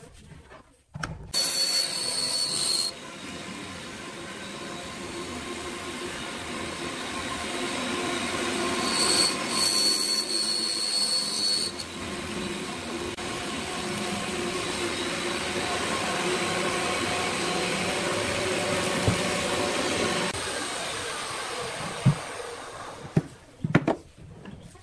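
Benchtop hollow-chisel mortiser running, its auger and square chisel cutting into a wooden board; the motor starts about a second in, with two spells of a high whine, and winds down near the end, followed by a few sharp knocks.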